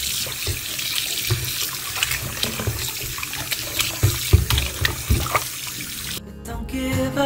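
Kitchen tap running into a sink while raw chicken pieces are rinsed by hand, with splashing and scattered knocks. The running water cuts off about six seconds in.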